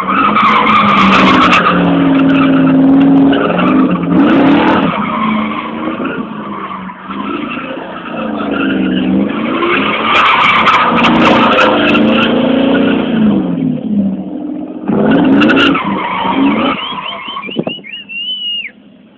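American car doing burnout donuts: the engine revs up and down in repeated surges while the rear tyres screech and spin on the tarmac. It dies down near the end.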